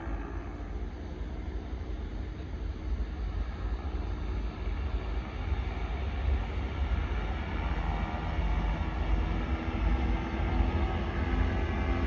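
Vittorazi Moster 185 two-stroke paramotor engine running, with heavy wind rumble on the microphone, growing gradually louder.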